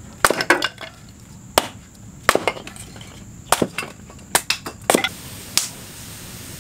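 Kindling being split with a blade on a wooden chopping block: about a dozen sharp wooden chops and cracks at uneven intervals, several in quick pairs or threes, the last a little after five seconds in.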